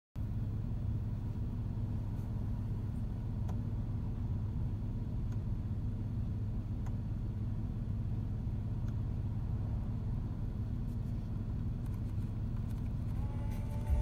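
Porsche 991.1's flat-six engine idling steadily, heard from inside the cabin as a low, even hum.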